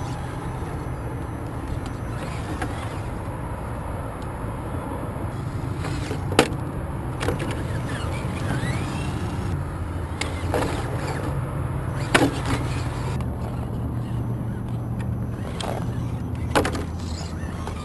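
Radio-controlled rock crawler truck's electric motor and geared drivetrain running with a steady low hum as it crawls over concrete and rock. A handful of sharp knocks come as its tyres and chassis strike the rock.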